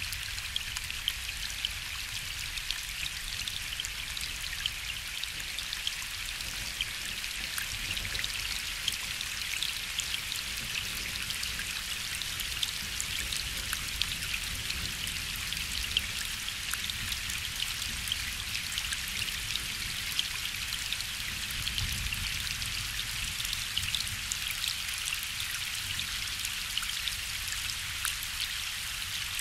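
Steady gentle rain falling on a lake, a constant hiss with many individual drops ticking sharply on top, and a low rumble of distant thunder underneath.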